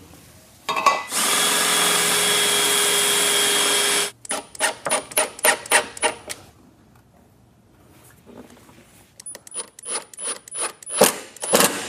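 Power drill running steadily for about three seconds, driving a screw into the underside of a wooden desktop. It is followed by a series of sharp clicks and taps, which pause and then start again.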